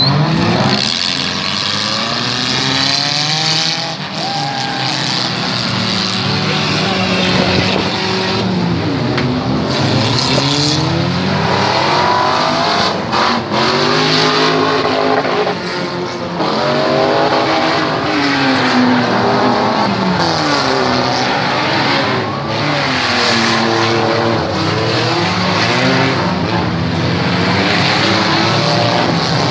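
Demolition derby cars' engines revving hard, several at once, their pitch climbing and falling over and over, with tyres skidding on the track.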